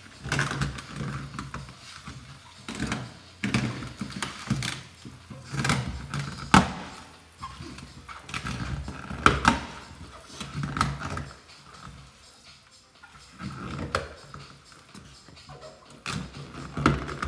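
Paint protection film being peeled off a car's rocker panel while liquid is sprayed on from a hand pump sprayer: irregular crackling, rustling and sharp clicks and knocks, with several louder snaps.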